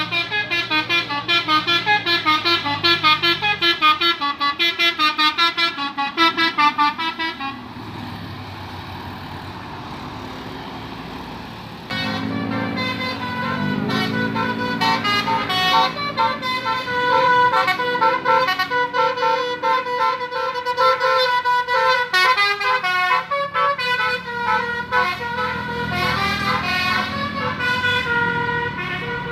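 Indonesian bus 'telolet basuri' musical horn playing quick melodic runs of short notes. About a third of the way in it stops and a steady hiss remains. Around halfway it starts again over the changing pitch of the bus engine.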